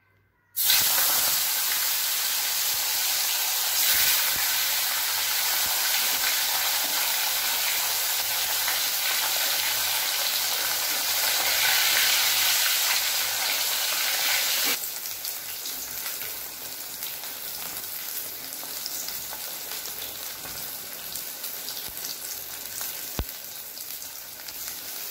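Katla fish pieces frying in hot mustard oil in a kadai: a loud sizzle that starts suddenly as the fish goes into the oil, then drops to a quieter, steady sizzle about halfway through.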